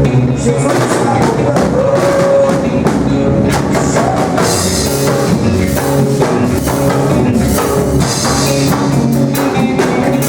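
A band playing rock-style gospel music, with drum kit and guitar, in a passage without words.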